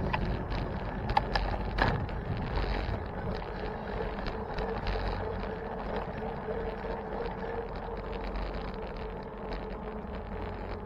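Steady wind rumble on the microphone and road noise from a bicycle ride, with the low rumble of motor traffic. There are a couple of sharp clicks within the first two seconds and a faint steady hum in the middle.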